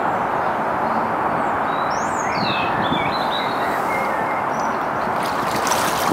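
Steady rushing wind noise over a lakeside, with a bird chirping a few times in the middle. About five seconds in, waders start splashing through shallow water.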